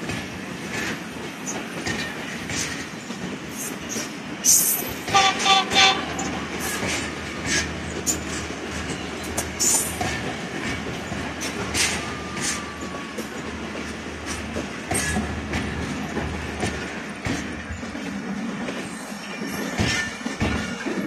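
Two passenger trains' coaches rolling past each other on adjacent tracks: a steady rumble of wheels with many clicks and clacks over the rail joints. A brief repeated pitched tone comes about five seconds in.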